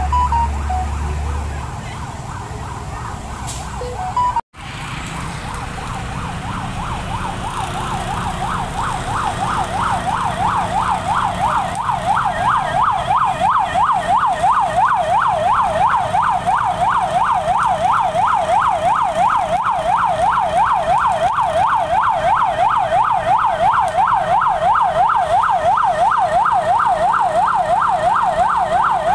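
An emergency vehicle's siren on a fast yelp, sweeping up and down about three times a second, growing louder from about six seconds in and then holding steady. Before it, a heavy truck's engine rumbles close by for the first couple of seconds.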